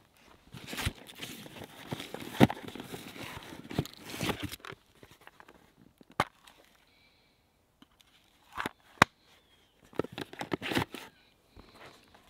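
Hands rummaging through a soft-sided tackle box: irregular sharp plastic clicks and knocks with rustling of gear, pausing for a few seconds about halfway through.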